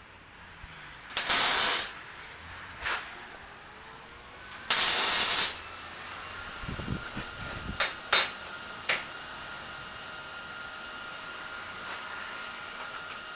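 Aerosol can of anti-spatter spray hissing in two short bursts, one about a second in and one about five seconds in. Soon after, a steady machine hum comes on, with a few sharp clicks.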